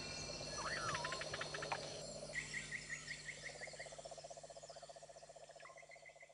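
Night ambience of frogs and insects chirping, with rapid repeated chirps and a long pulsed trill, and one rising-and-falling call about a second in. The whole chorus fades out steadily.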